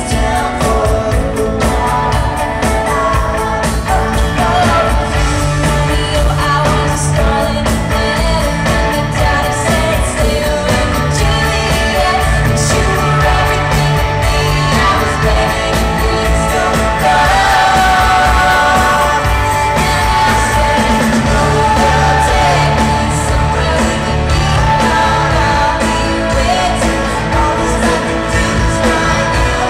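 A woman singing a pop song live into a microphone over loud band accompaniment with a pulsing bass, recorded from among the audience in an arena.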